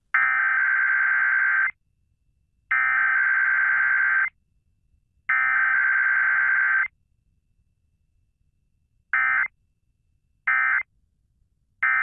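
Emergency Alert System SAME digital data bursts as heard on a radio station's weekly test. Three shrill, warbling bursts of about a second and a half each, about a second apart, carry the header. Three short bursts near the end are the end-of-message code.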